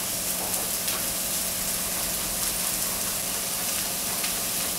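Strips of zucchini, aubergine and pepper sizzling in hot olive oil in a frying pan: a steady frying hiss with small scattered crackles.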